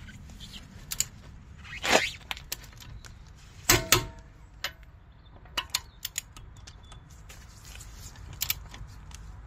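Click-type torque wrench and socket on wheel lug nuts: a series of sharp metallic clicks and clanks as the socket is fitted and the wrench is pulled. The loudest, about four seconds in, is a quick double click with a short ring, the wrench clicking over at its set 175 N·m.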